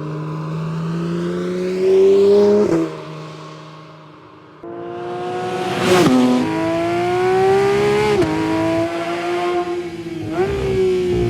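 Porsche 911 GT3 RS's 4.0-litre naturally aspirated flat-six accelerating hard, its pitch climbing and then dropping at a gear change about three seconds in and again about eight seconds in. The sound fades away after the first shift and comes back loud all at once a little before halfway.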